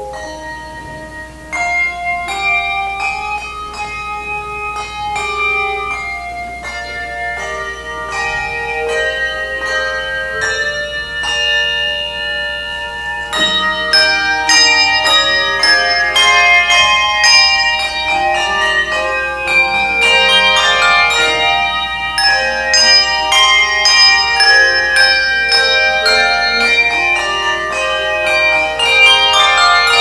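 Handbell choir playing a hymn melody on handbells, many ringing bell notes overlapping. The playing is sparser and softer at first, then about thirteen seconds in it turns fuller and louder with more bells at once.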